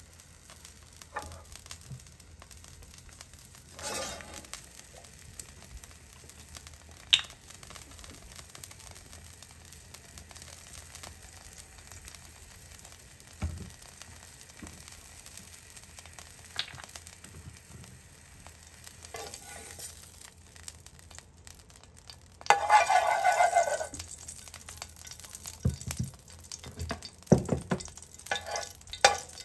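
Olive oil heating in a frying pan with a faint sizzle, and a metal spoon now and then clicking against the pan. A louder burst of about a second and a half comes about three-quarters of the way in.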